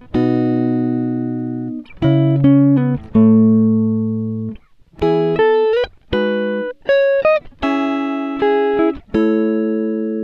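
Background music: plucked guitar notes and chords, each struck and left to ring out and fade, with short gaps between phrases.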